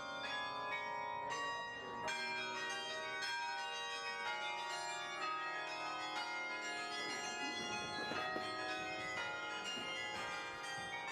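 Bells ringing, several notes struck one after another with each one ringing on over the next.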